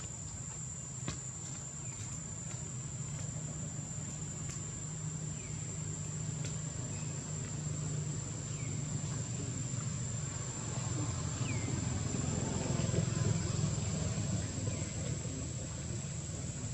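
Insects droning steadily at one high pitch over a low, even rumble, with a few brief high chirps now and then.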